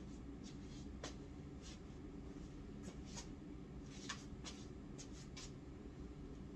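Quiet small-room hum with faint, scattered rustles and light scuffs, about eight in all, from a person turning in place.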